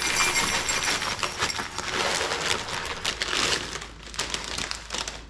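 Dry spiral pasta poured out of its plastic bag, the hard pieces rattling and clattering as they fall, with the bag crinkling; it tails off near the end.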